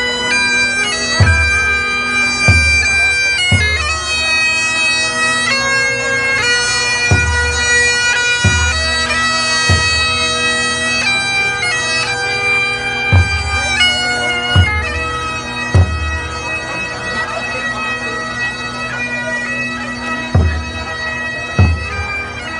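Music from reed pipes: a slow melody of held notes over a steady drone. A deep drum is struck now and then, usually two or three beats about a second apart.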